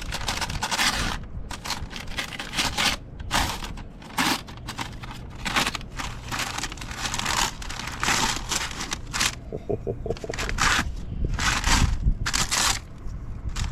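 Parchment paper crinkling and rustling in irregular bursts as it is handled and pulled open around a smoked brisket.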